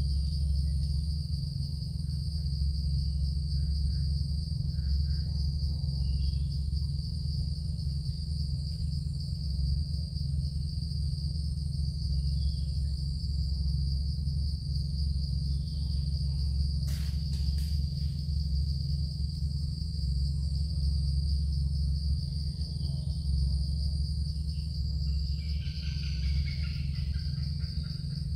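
Insects droning steadily in one high pitch over a steady low hum, with a single brief click about 17 seconds in.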